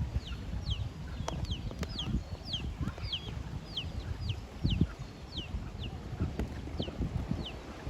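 Chicken chicks peeping: a run of short, high, downward-sliding peeps, about two a second, that fades out near the end.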